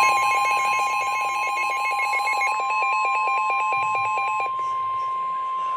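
Emergency Alert System attention signal: a loud steady alarm tone near 1 kHz, with a second tone switching rapidly between pitches over it for the first four and a half seconds, then the steady tone alone until it cuts off abruptly near the end.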